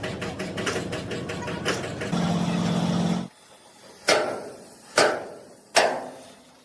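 A machine runs with rapid mechanical rattling and a steady hum, then stops abruptly a little over three seconds in. Three sharp metal strikes follow, about a second apart, each ringing briefly, like hammer blows on steel.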